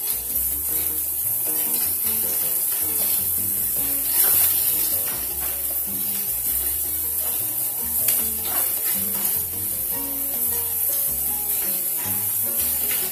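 Diced ham and onions sizzling in a nonstick frying pan, stirred with a plastic slotted spatula that scrapes and taps the pan a few times. Background music plays underneath.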